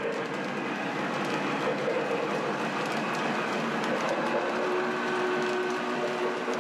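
O-gauge model passenger cars rolling along three-rail track: a steady rumble of wheels with light scattered clicking.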